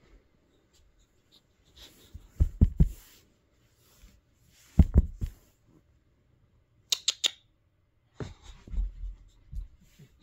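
Pit bull puppy sniffing close to the microphone in several short bursts, with soft bumps between them, and a couple of sharp clicks about seven seconds in.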